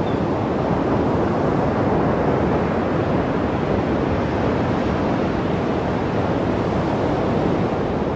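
Steady rushing ambience of sea surf and wind, unbroken and even throughout.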